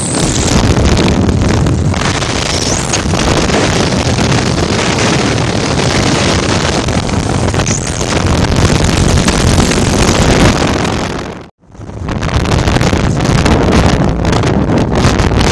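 Wind buffeting a phone's microphone on a moving motorcycle, with the bike's running and road noise underneath. The sound cuts out abruptly for a moment about eleven and a half seconds in.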